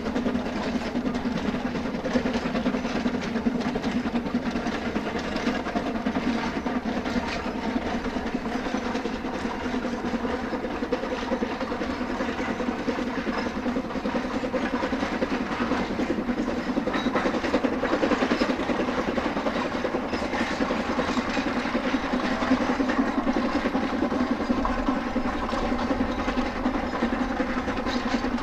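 C2-class narrow-gauge steam locomotive working a train, a steady, even running noise with no breaks.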